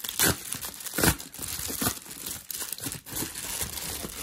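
Plastic bubble mailer crinkling and tearing as it is pulled open by hand, with two sharp, loud rips near the start, followed by steady crinkling as a hand reaches inside.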